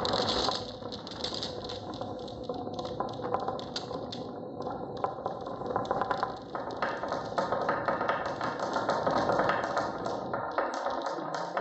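Many marbles rolling and clattering down a wooden marble-run track, with a rapid, dense stream of clicks and knocks over a continuous rolling rumble.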